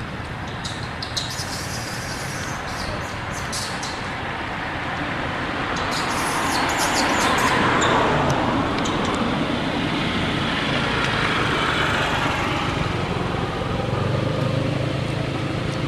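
Road traffic passing: a steady rush of vehicle noise that swells to its loudest about halfway through. Scattered sharp crackling clicks come through in the first half.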